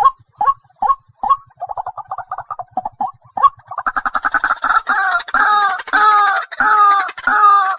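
White-breasted waterhen calling. It starts with short notes about two and a half a second, breaks into a fast stuttering run of notes about one and a half seconds in, then from about three and a half seconds in gives louder, longer croaking 'ruak' notes about twice a second.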